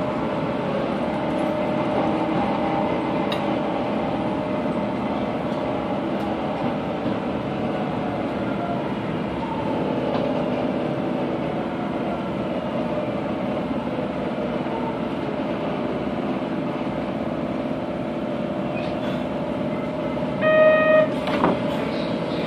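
Onboard running sound of a Kobe City Subway 3000 series train with Hitachi GTO-thyristor inverter control: a steady rumble of wheels and traction motors, with faint inverter tones sliding in pitch. A short electronic beep sounds twice near the end.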